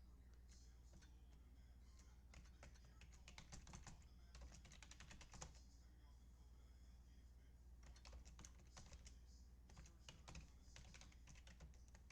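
Faint computer keyboard typing: bursts of rapid keystrokes with short pauses between them, over a steady low hum.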